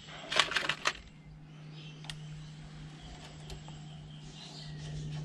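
A quick cluster of metallic clicks and rattles in the first second, then a few single clicks, as small metal throttle-linkage parts are handled at the throttle bodies, over a steady low hum.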